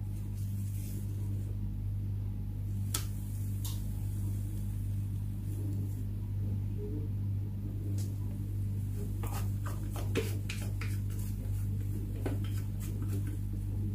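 Steady low hum with light clicks and taps scattered through, thickening to a run of them about two-thirds of the way in, as genoise sponge batter is scraped out and shared between two cake tins.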